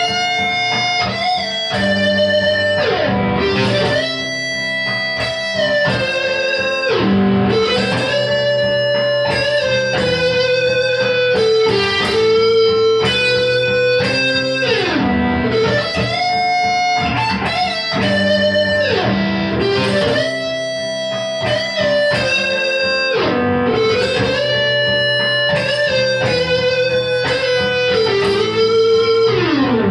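Gibson Les Paul electric guitar overdriven through a Marshall Guv'nor distortion pedal, playing a melodic blues-rock lead over a backing track. It plays long sustained notes with bends, slides and vibrato over held chords.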